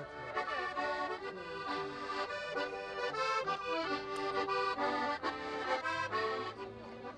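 Several button accordions playing a tune together in quick, chordal notes.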